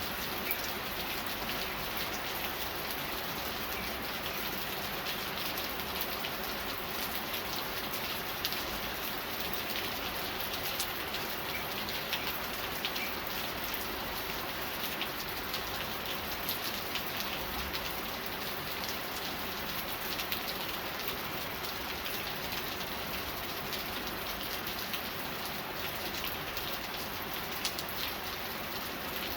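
Steady rain falling, with many small individual drop ticks over the even hiss of the downpour.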